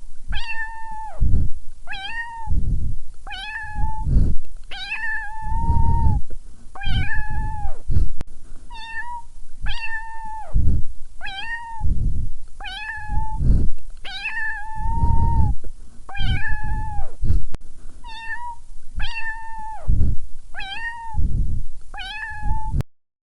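Cat meowing over and over, about one short high meow a second, with a low rumble under many of the calls; it stops abruptly near the end.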